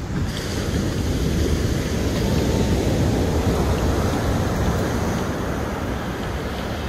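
Sea waves breaking and washing up a sandy beach, swelling to a peak a couple of seconds in and then easing, with wind rumbling on the microphone.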